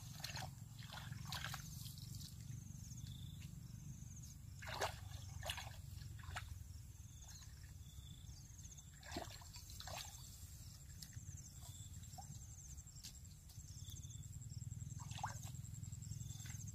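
Faint water sloshing and trickling, with a few short splashes scattered through, over a steady low rumble.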